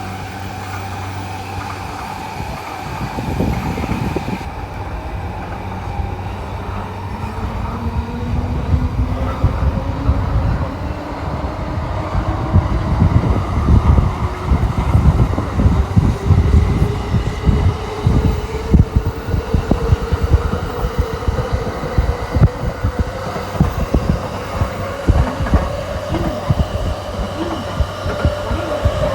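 N700S Shinkansen train accelerating: the whine of its traction motors climbs steadily in pitch. Underneath there is a low rumble with irregular thumps that grow louder from about halfway through.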